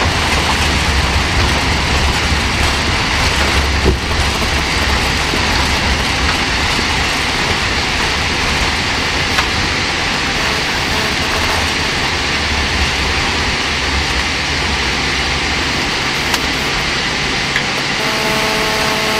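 Boeing 747-8 cabin noise during the landing rollout: a steady rush of engines and airflow over a low rumble from the runway. The rumble eases in the last few seconds as the aircraft slows, and there is a single knock about four seconds in. Near the end, a steady tone comes on as the cabin announcement system starts.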